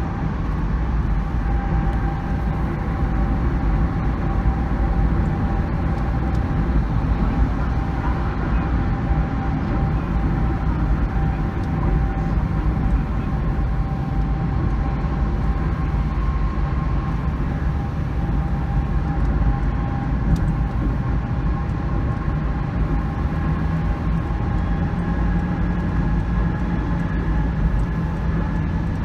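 Steady road rumble of a vehicle driving at constant speed, with a faint high whine held throughout.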